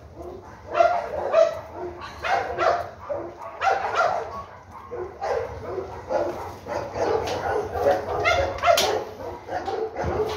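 Dog barking and yelping repeatedly, in short high calls at about one or two a second.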